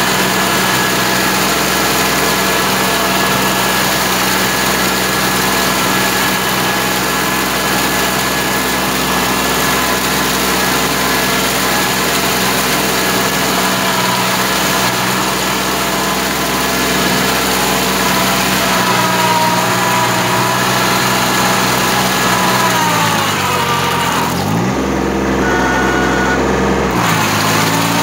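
Kubota B2140 compact tractor's diesel engine running steadily while it drives a rotary tiller through a flooded rice paddy. About two-thirds of the way in, the engine speed falls and stays lower for a few seconds, then picks back up near the end.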